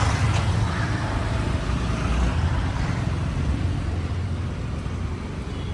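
Steady low rumble of city street noise, with traffic going by.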